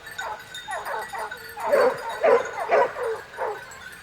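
A pack of hunting dogs baying and yelping in quick, overlapping calls, louder in the middle, as they chase a wild boar.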